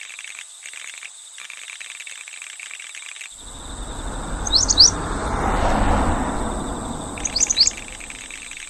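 Outdoor ambience: insects buzzing in on-and-off stretches, with two quick bird chirps about halfway through and again near the end. A rushing noise with a low rumble swells up and fades away over about five seconds in the middle.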